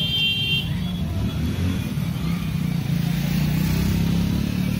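Street traffic: a brief high horn toot at the start, then a vehicle engine running close by, growing louder over the second half.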